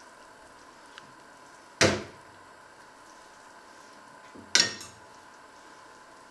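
Two sharp clatters of kitchen cutlery against china and steel, about three seconds apart, the second a quick double strike, with a small click before the first. Under them runs a faint steady hum.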